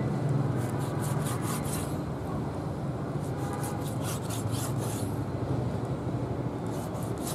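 Wet rubbing and scraping of raw bull stomach coated in red paste, worked by hand and cleaver on a wooden chopping block, in three runs of quick strokes.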